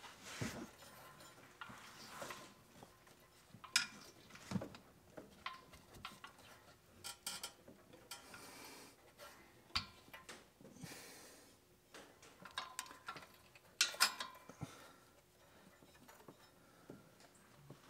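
Scattered clinks, knocks and scrapes from hands working a rubber drive belt against the metal pulleys and spring-loaded tensioner of a zero-turn mower. The belt is still held tight by the tensioner spring.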